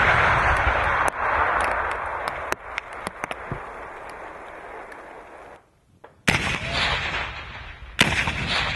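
Demolition charges detonating. The rolling rumble and echo of a blast that has just gone off, with a second sharp report about a second in, dies away over several seconds. After a brief gap another blast goes off about six seconds in, and a further sharp one near the end.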